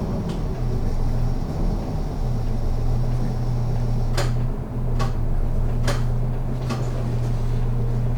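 City bus engine running steadily, heard from inside the passenger cabin as a low hum. About halfway through come four sharp clicks, a little under a second apart.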